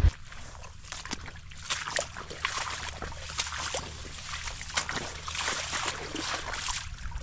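Water trickling and splashing, with many small, irregular splashes.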